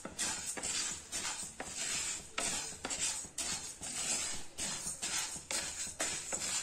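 Fenugreek seeds being dry-roasted in a nonstick wok, stirred with a wooden spatula: the seeds rattle and scrape across the pan in repeated sweeping strokes, about two a second.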